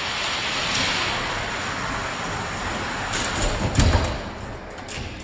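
Hot Wheels diecast cars rolling down a long plastic orange track, a steady rattling rumble of wheels on plastic. Near the end come a cluster of clacks and a heavy thud just under four seconds in, then a few clicks.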